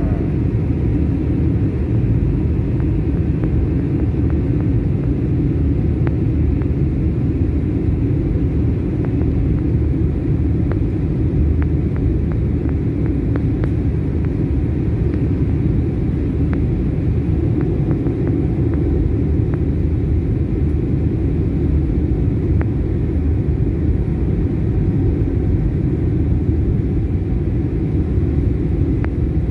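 Steady, low-pitched cabin noise of a Boeing 737 MAX 9 on approach, heard from a window seat inside the cabin: engine and airflow noise that does not change.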